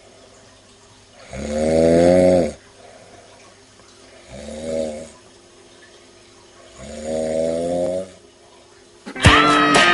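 Heavy snoring: three loud, drawn-out snores, each rising slightly in pitch, with short pauses between them. Near the end, music cuts in with a clash of sharp strikes.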